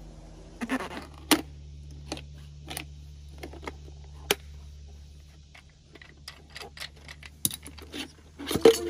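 Filter cutter being worked around the top of a spin-on fuel filter canister, giving irregular metallic clicks and scrapes, busiest in the first second or so and again near the end.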